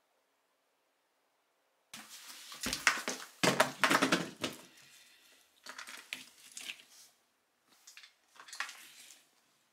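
Rustling, scuffling and clattering of a dog harness and leash being handled on a dog, with sharp clicks of the buckles and clips. It comes in three bouts starting about two seconds in, the first the loudest.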